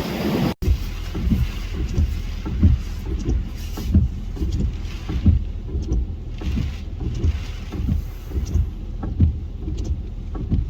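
Strong hurricane winds buffeting the microphone in irregular gusts, a deep uneven rumble with patches of hiss.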